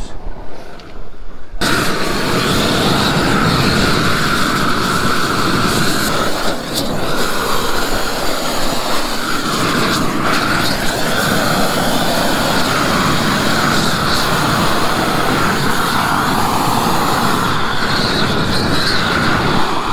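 Propane roofing torch burning steadily, starting about a second and a half in, as it heats the underside of a modified bitumen torch-down membrane roll to melt it onto the old roof surface.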